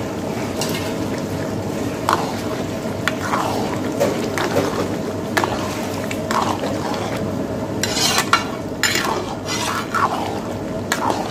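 Metal ladle stirring cream into thick vegetable korma in a large kadai, scraping and knocking against the pan about once a second, more often in the second half. A steady hum runs underneath.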